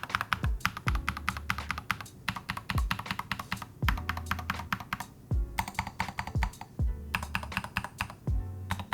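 Fast typing on a mechanical keyboard fitted with Drop SA-profile keycaps: a dense run of key clacks with brief pauses, over a lo-fi beat with a low kick drum.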